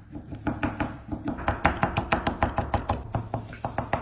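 Knife rapidly chopping a hot sausage stick into fine bits on paper over a wooden table, each stroke a sharp tap of the blade through to the table. The chops come a few at a time at first, then quicken about a second in to about six or seven a second.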